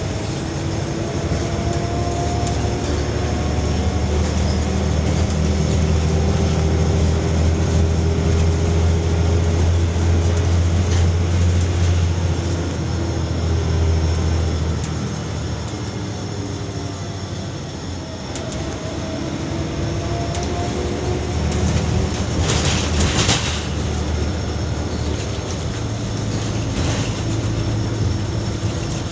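Volvo B12BLEA articulated bus's diesel engine and driveline heard from inside the cabin, pulling with a deep drone and a whine that climbs and falls in pitch as it goes through the gears. It eases off a little past the middle, then builds again, with a short burst of hiss about two-thirds of the way through.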